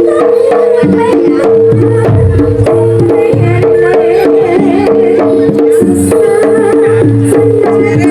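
Javanese jaranan music played loud: fast, dense hand-drum (kendang) strokes under a long held high melody note.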